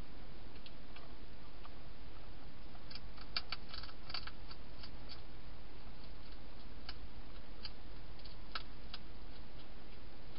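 Wild hedgehog eating dry food inside a plastic feeding box: irregular crunching clicks, with a quick cluster about three to four seconds in, over a steady hiss.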